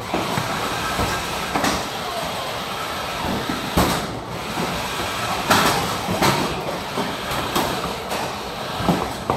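Combat robots clattering and banging against each other and the arena floor and walls, with sharp hits about four seconds in, about five and a half seconds in and near the end, over a steady background din.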